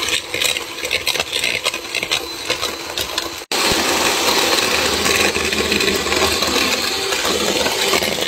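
Hand-held electric mixer whisking egg whites with sugar into a stiff meringue. The motor runs steadily while the beaters rattle and click against the bowl, and the sound breaks off for an instant about three and a half seconds in.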